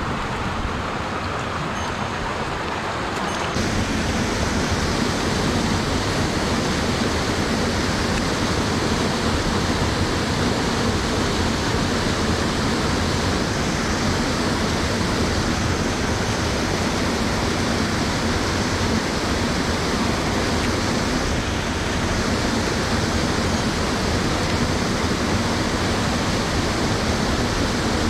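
Mountain stream rushing steadily over a small cascade into a pool, running high with rain and snowmelt; the rush grows a little louder a few seconds in.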